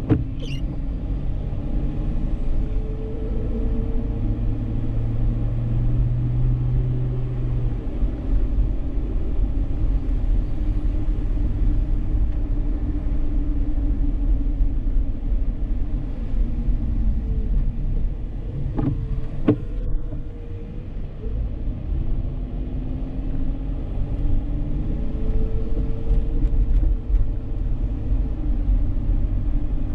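Dodge Charger driving on city streets: a steady low rumble of engine and road noise, with the engine note rising and falling gently. A steady low hum lasts a few seconds near the start, and two sharp clicks come about nineteen seconds in.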